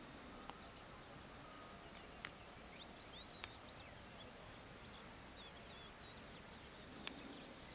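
Greater short-toed lark singing faintly: short, scattered phrases of high chirps and quick rising and falling notes over a steady hiss. A few sharp clicks stand out, the loudest about two seconds in and near the end.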